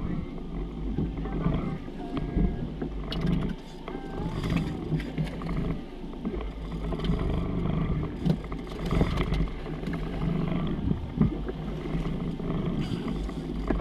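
Suzuki outboard motor idling with a steady low hum, with scattered short knocks and clicks over it.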